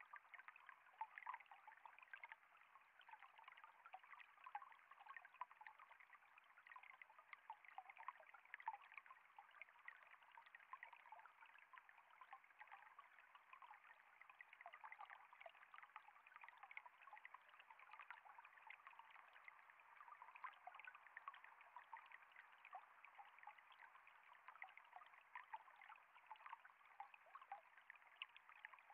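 Faint, steady trickling and splashing of falling water.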